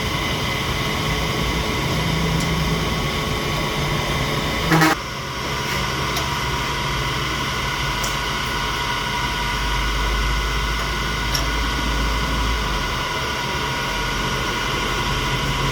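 A metalworking machine tool running steadily, with a constant hum and several steady whining tones. A brief louder clunk comes about five seconds in.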